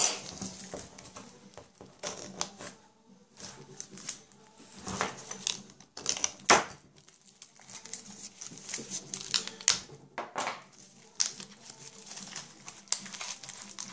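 A kitchen knife slicing through the clear plastic wrapping around a stack of circuit boards, then the plastic being pulled loose: crinkling and scraping with scattered clicks and taps. The loudest is a sharp click about six and a half seconds in.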